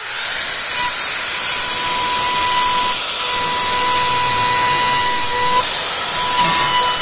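An electric motor starts up and runs steadily: a high whine that rises over the first half second, then holds over a loud rushing hiss, with a slight shift in pitch a little past halfway.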